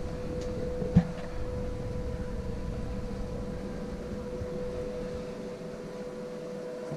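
Steady one-pitched hum of running equipment in a boat's engine room, over a low rumble, with a single sharp knock about a second in.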